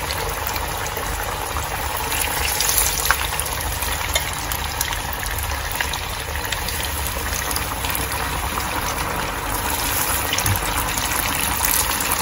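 Flour-coated chicken pieces deep-frying in hot oil: a steady, dense sizzle and bubbling with small crackles and occasional sharper pops, one of them about three seconds in.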